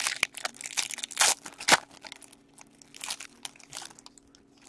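A trading-card pack's wrapper crinkling and tearing as it is opened by hand, with the cards sliding out: irregular crackles, two louder ones between one and two seconds in.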